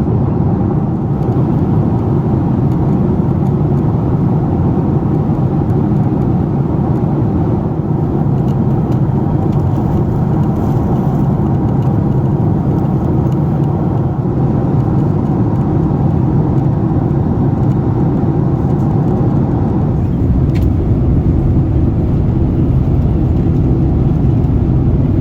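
Steady roar inside the cabin of a Boeing 767-400ER in flight, the drone of its engines and the rush of air past the fuselage.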